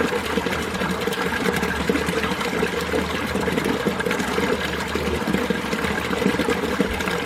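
Mountain stream water flowing steadily: a continuous rush of running water.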